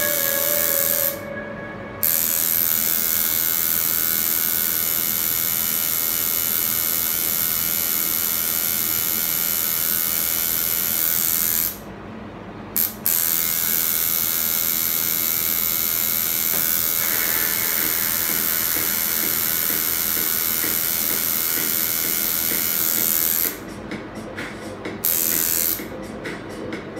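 Electric tattoo machine buzzing steadily as it works. It cuts out briefly about a second in and again near the middle, then stops and starts in short bursts over the last few seconds.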